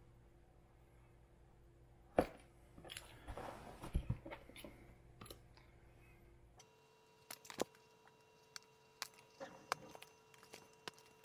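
Razor blade cutting off plastic weld tabs on a molded plastic fender, faint: a sharp click about two seconds in, then a couple of seconds of crunchy scraping, then scattered small clicks and taps over a low hum.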